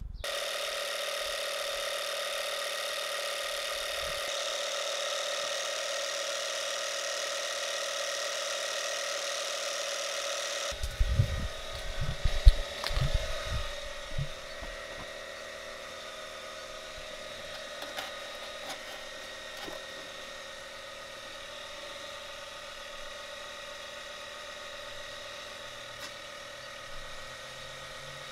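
Portable tire inflator, a small air compressor, running steadily with a buzzing hum, pumping air through a homemade paint-can smoke generator into a car's EVAP system to find a leak. About ten seconds in it drops in level, and a few low knocks and rumbles come over it for several seconds.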